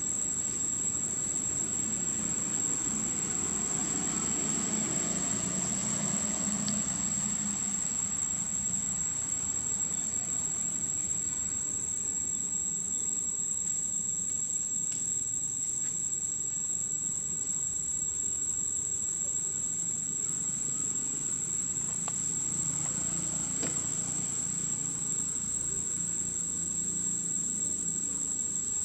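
Steady high-pitched drone of insects, one unbroken tone, over a low steady rumble.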